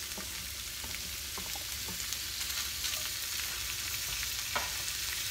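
Chopped turkey sizzling in hot olive oil in a cast-iron skillet, the sizzle growing a little louder as the meat goes in. A few light scrapes and taps of a wooden spatula push it off a plate and stir it around.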